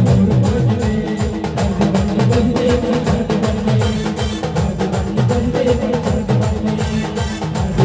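Band music without singing: a fast, steady drum beat of strokes that drop in pitch, over held instrumental notes.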